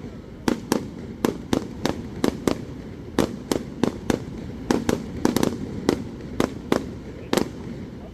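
Aerial fireworks shells bursting in a quick, irregular series of sharp bangs, about two or three a second, over a steady low rumble.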